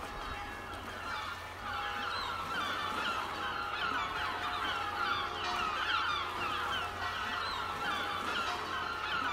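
A flock of birds calling: many short, overlapping falling calls that grow denser about a second and a half in.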